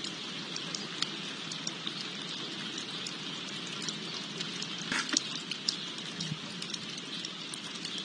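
Steady splashing and trickling of water from a small spouting garden fountain in a stone basin, with scattered light ticks and a short louder crackle about five seconds in.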